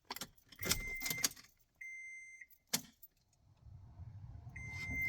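Keys jangling in the Toyota FJ Cruiser's cabin while the car's warning chime sounds a steady high beep three times, each about half a second long. A low hum comes up near the end.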